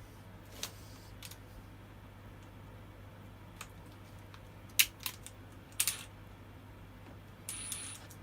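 Scattered sharp clicks and knocks of tools and chainsaw parts being handled while the bar and chain are taken off a chainsaw, the loudest about five seconds in, with a short scraping rustle near the end.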